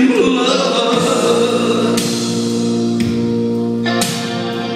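A man singing into a microphone over backing music. In the first second his voice wavers; then a sustained chord takes over, with a cymbal-like stroke about once a second.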